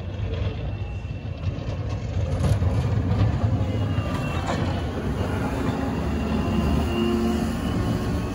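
Caterpillar 938M wheel loader's diesel engine running steadily under load while it pushes snow, growing louder about two and a half seconds in as the machine comes close.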